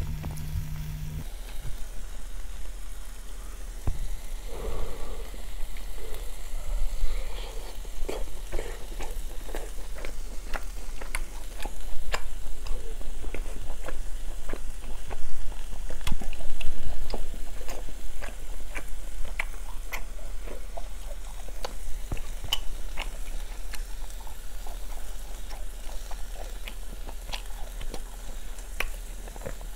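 Thin slices of beef sizzling on a small grill pan over a mini brazier's flame, with frequent irregular crackling pops from the fat. Chewing is heard at times.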